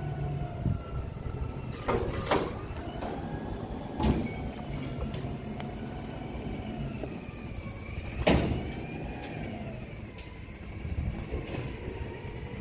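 A few sharp metal knocks, the loudest about eight seconds in, as tabs on the Hyundai Elantra hub assembly are bent down with a tool, over a steady low hum.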